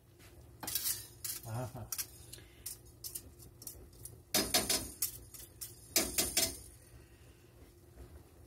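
Wire whisk clinking and scraping against a stainless steel skillet as a thick roux-and-milk sauce is whisked, in short bursts about a second in, around four and a half seconds, and again around six seconds.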